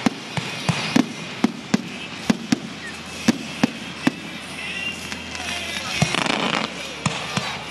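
Fireworks going off: an irregular string of sharp bangs and pops, one after another.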